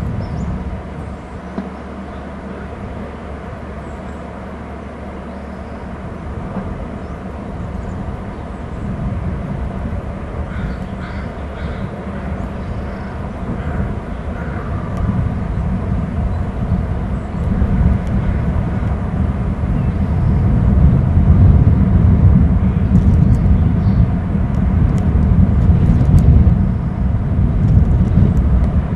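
Wind buffeting an outdoor microphone: a gusty low rumble that grows louder in the second half.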